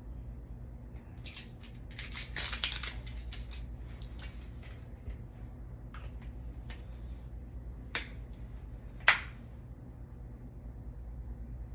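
Kitchen handling sounds while sriracha is measured out for a sauce: a scraping, rustling burst of about two seconds beginning a second and a half in, then scattered light clicks and a sharp knock about nine seconds in. A steady low hum sits under it all.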